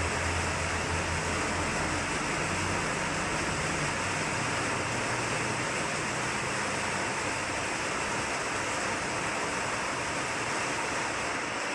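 Steady, even rushing noise, with a low hum fading out over the first two seconds.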